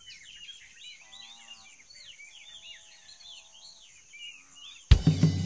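Many small birds chirping over each other in quick short calls, over a steady high-pitched drone. Music with percussion cuts in suddenly near the end.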